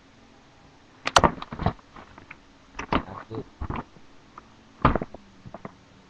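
Three bursts of knocks and clattering thumps close to the microphone, like objects being handled and set down.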